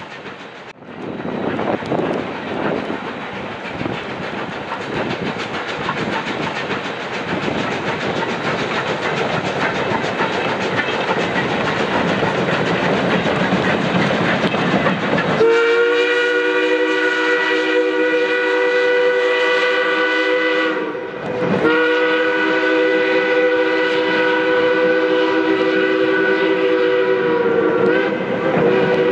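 Durango & Silverton K-28 steam locomotive No. 473 running across a steel truss bridge with its train, a steady rolling and working noise. About halfway through its steam whistle sounds a long multi-note blast, breaks off briefly, then sounds again and holds.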